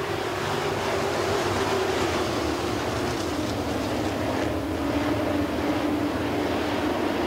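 A pack of classic-bodied dirt track race cars running together on the oval, their engines blending into one steady drone whose pitch sags a little and then comes back near the end.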